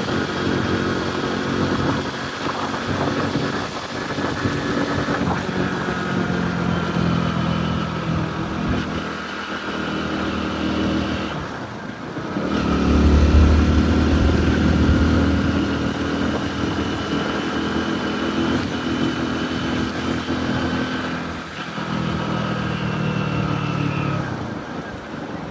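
Motorcycle engine running at riding speed with road noise. About halfway through the engine briefly drops off, then pulls harder with a deep low rumble before settling back to a steady cruise.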